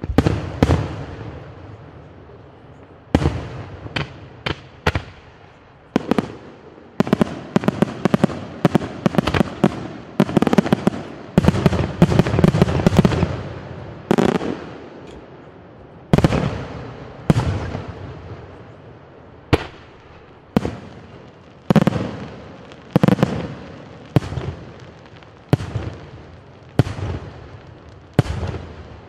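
Aerial firework shells bursting one after another, each a sharp bang that trails off in an echoing rumble. A dense, rapid volley comes in the middle, then single bursts follow a little over a second apart.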